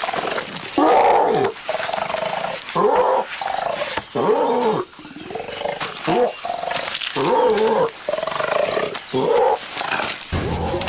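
Bornean orangutans calling in an aggressive encounter between males: a string of about eight loud calls, roughly one a second, each rising then falling in pitch.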